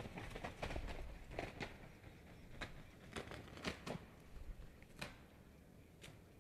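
Faint, irregular crackling and rustling of dry twigs as a black stork shifts in its stick nest and works the nest material with its bill.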